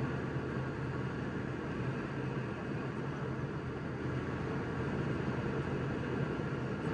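Steady roar inside an airliner's passenger cabin during the climb after takeoff: jet engine and airflow noise with a low hum underneath.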